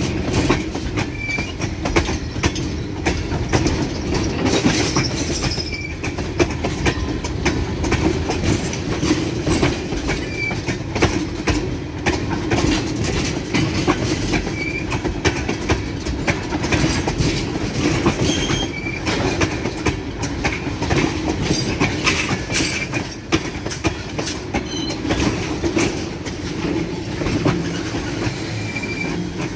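Freight train of tank cars rolling past close by: a steady rumble with rapid clickety-clack of wheels over the rail joints, and short high squeals from the wheels now and then.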